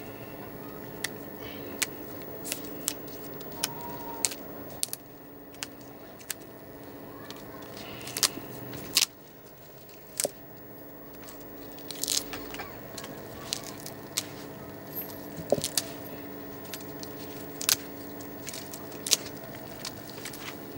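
Irregular sharp clicks and crackles, about one a second, from small objects being handled, over a steady low hum.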